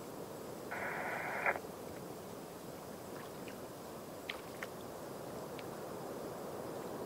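Steady distant harbour ambience at night. About a second in, a short burst of static from a marine VHF radio starts and stops abruptly, ending in a squelch click, then a few faint ticks.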